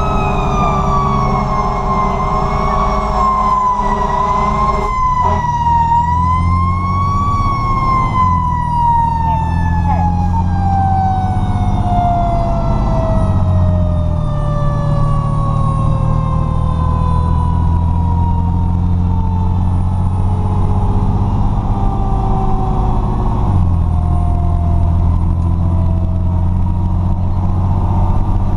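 Federal Q mechanical siren on a 2003 Pierce Dash fire truck wailing up and down, then rising once and winding down in one long falling tone over about ten seconds. A steady chord of horn tones cuts off about five seconds in. Under it all the truck's diesel engine runs steadily, its note stepping a few times.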